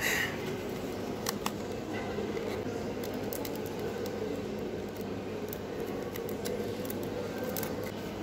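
Paper and a clear plastic sleeve being handled as a purchase is packed: a brief rustle at the start, then scattered small clicks and soft crinkles over a steady room hum.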